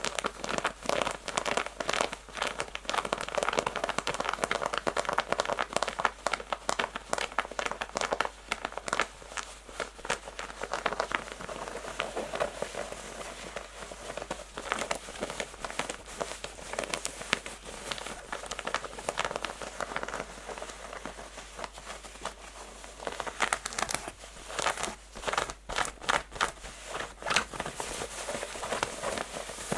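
Natural fingernails scratching fast and hard on textured denim jeans: a dense run of rapid scratchy strokes, louder and sharper for a stretch near the end.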